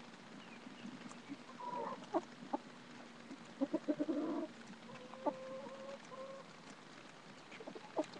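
A flock of chickens clucking close by, with scattered short calls, a run of quick clucks about halfway through, and one longer, steady call after it.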